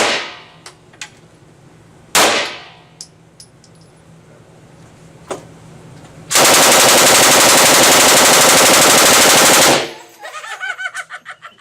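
M249 5.56 mm belt-fed light machine gun fired in one long continuous burst of about three and a half seconds, more than halfway through. Before it come a few separate loud gunshots, each with a ringing tail.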